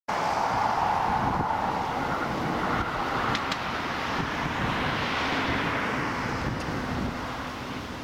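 Strong wind buffeting the microphone over the steady roar of a jet airliner's engines on the runway, with a car passing close by around the middle.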